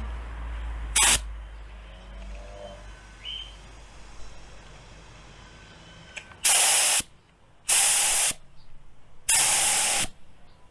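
Paint spray gun fired in short trigger pulls, each a hiss of air and paint: one brief blast about a second in, then three longer blasts of under a second each in the second half. The gun is being test-sprayed to set its spray pattern.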